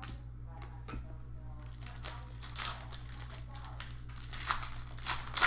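Trading cards and their packaging being handled, with irregular crinkling and rustling.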